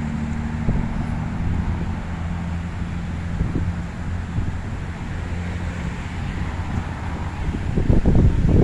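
Outdoor ambience of wind rumbling on the microphone over a steady low hum of distant traffic; the wind gusts louder near the end.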